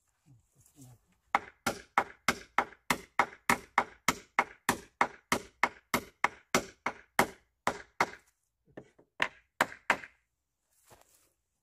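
Hammer driving a medium-size spike nail into a wooden stair frame to reinforce collapsed steps: a fast, even run of blows, about four a second, then a few slower, spaced blows near the end.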